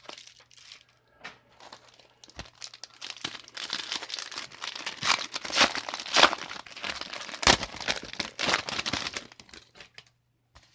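Foil booster pack of trading cards being torn open and its wrapper crinkled: a run of tearing and crinkling, building after about two seconds and loudest in the middle, with a few sharp snaps.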